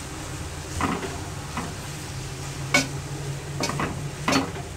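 Wooden spatula stirring and scraping shredded chicken in a non-stick frying pan, with short knocks of the spatula against the pan about once a second over a low sizzle.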